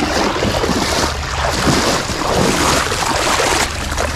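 Small boat moving on the water: a steady low drone under a constant rush of water and wind on the microphone.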